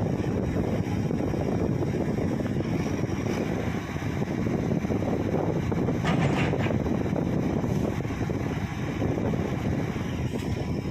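Heavy diesel engine running steadily under wind buffeting the microphone, with a few faint ticks about six seconds in.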